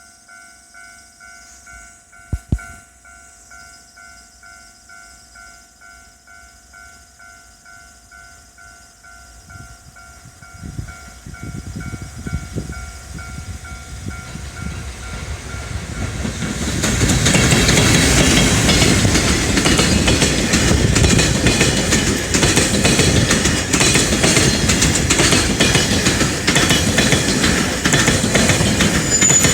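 Level crossing alarm bell ringing in steady, even pulses, with two sharp thumps about two seconds in. From about ten seconds an EF510 electric locomotive hauling a freight train approaches and grows louder, and from about seventeen seconds it passes close by at full loudness, wheels clattering on the rails and drowning out the bell.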